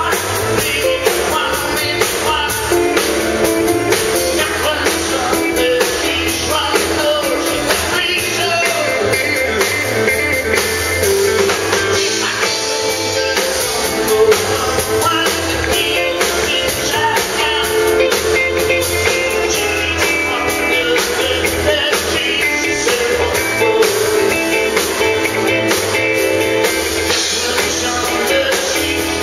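Live country band: a man singing over acoustic guitar and drum kit, with pedal steel guitar, at a steady level with no pauses.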